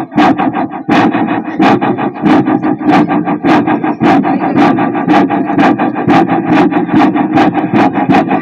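A man imitating a train engine with his mouth: a steady chugging rhythm of about three puffs a second over a continuous drone, like a locomotive under way.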